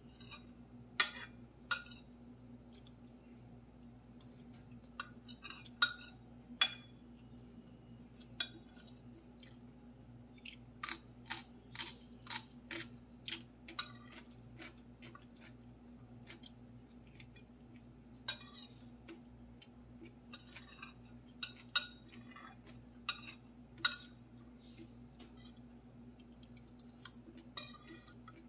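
Metal spoon and fork clinking and scraping on a ceramic plate while scooping up fried rice: scattered sharp clinks, with a quick run of about eight clinks near the middle. A steady low hum lies underneath.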